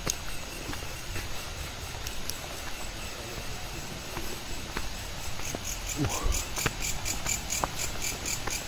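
Night insects, crickets among them, chirping in steady rapid pulses, with a second, higher pulsing chirp joining about halfway through. Underneath is a low rush of flowing river water, and a few sharp snaps and rustles of footsteps on a forest path.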